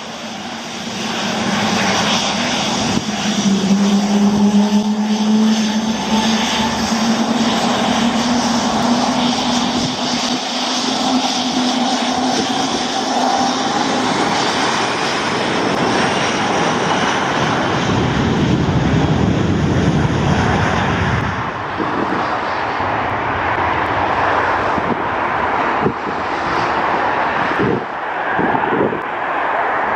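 Dassault Falcon 7X's three Pratt & Whitney PW307A turbofans at takeoff power as the jet departs, a strong engine tone slowly falling in pitch as it passes. Its high whine fades out about two-thirds of the way through, leaving a low rumble as it climbs away.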